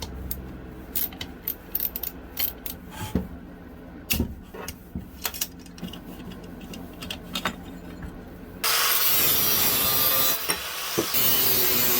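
Workshop tool sounds: scattered clicks and knocks of hand tools, then about nine seconds in a loud, steady cutting noise starts abruptly, consistent with metal being cut or shaped for the saw's new exhaust pipe.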